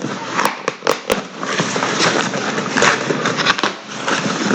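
Packaging rustling and crinkling as a parcel is opened by hand, with a few sharp snaps near the start.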